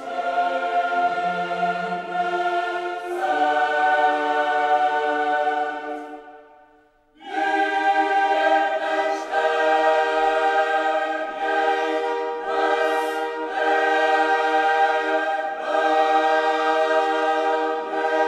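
Background music of a choir singing long held chords. It fades out about six seconds in, and a new chord starts about a second later.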